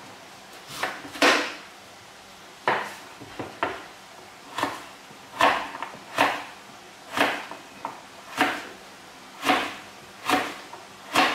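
Kitchen knife slicing a raw potato on a plastic cutting board: a steady series of about a dozen sharp knocks as the blade goes through and strikes the board, roughly one a second.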